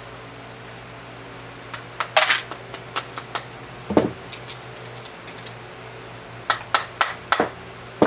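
Sharp metal clicks and knocks from working a bullet-casting mold: its sprue plate struck off and the mold opened to drop a bullet. They come in two quick clusters with a single ringing knock between them, over a steady low hum.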